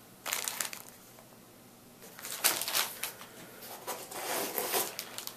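Clear plastic bait bags crinkling as they are handled: a short crinkle just after the start, then a quiet moment, then more continuous crinkling and rustling from about two seconds in.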